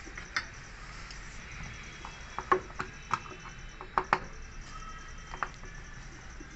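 Scattered sharp clicks and knocks, about seven of them, the loudest about two and a half and four seconds in: parts and tools being handled during work on a front-load washing machine door.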